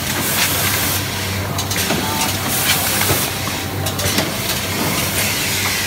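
Rotary doypack liquid-filling machine running: a steady low machine hum under a compressed-air hiss that swells and fades irregularly, about once a second.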